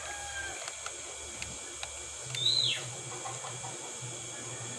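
Small DC motors of a homemade RC car humming faintly as it drives over floor tiles, with a few light clicks. A little after two seconds a single short falling whistle is the loudest sound.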